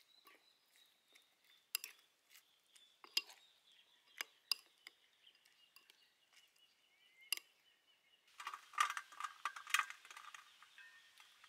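A metal spoon stirring sauce in a ceramic bowl, clinking sharply against the bowl every second or so. About eight seconds in comes a denser run of quick metallic clinks and taps.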